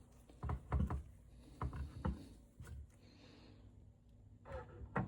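A few light, irregular knocks and clicks as the parts of a hot lather machine are handled and set in place during reassembly.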